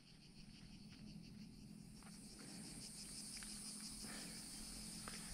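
Faint cicadas buzzing in a steady, high, pulsing drone that fades up from silence at the start, with a faint low hum beneath.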